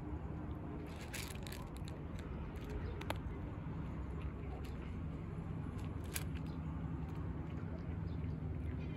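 A cat crunching dry kibble, a few short bursts of crisp crunching clicks, the loudest about a second in and about six seconds in, over a steady low background hum.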